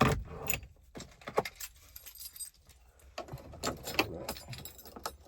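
Car keys jingling and clicking as they are handled, in several separate bouts with the loudest right at the start.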